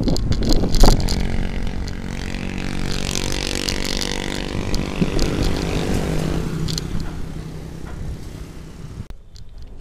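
A motorcycle engine running close by for several seconds, then fading away. Underneath is wind rush on the moving bicycle. In the first second the bicycle rattles over rough ground, with a loud knock about a second in.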